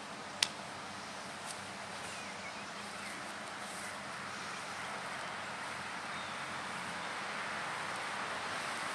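Steady outdoor background noise with wind on the microphone, slowly growing louder, and one sharp click about half a second in.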